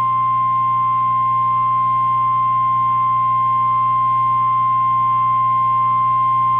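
NOAA Weather Radio 1050 Hz warning alarm tone: one steady, unbroken tone at a single pitch, the signal that a warning message is about to follow. A low radio hum runs beneath it.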